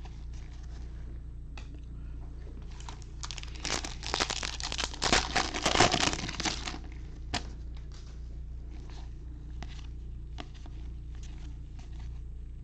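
A baseball card pack's wrapper being torn open and crinkled, busiest and loudest in the middle few seconds, with lighter clicks and rustles of cards being handled before and after.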